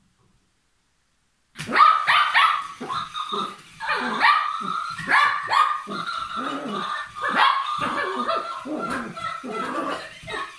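Papillon barking and yipping in play, a rapid run of short, high barks that starts about a second and a half in after a moment of silence.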